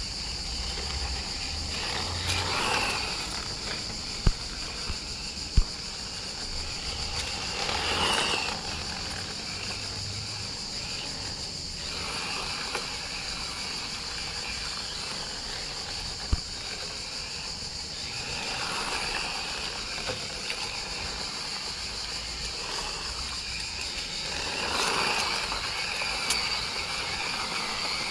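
Tamiya Volkswagen Beetle electric RC car running on asphalt: its motor whine and tyre noise swell up and fade as it passes near, about four times, with a few sharp clicks. A steady high-pitched insect chorus runs underneath.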